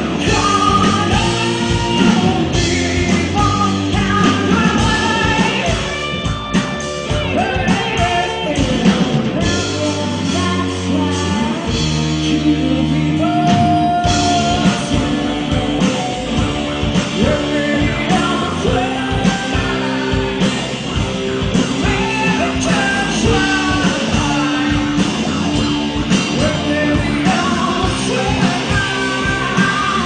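Live rock band playing: a woman singing over electric guitar, bass guitar and a drum kit keeping a steady beat.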